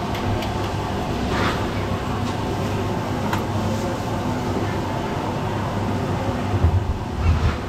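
Steady background noise of a busy street-food stall, with a low hum, a few faint clicks and a couple of low bumps near the end.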